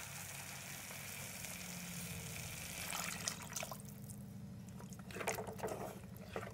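Water poured from a tumbler into a clay pot of fried chickpea masala, a steady pour for about the first three seconds, then a spatula stirring and scraping in the pot as the water is mixed in.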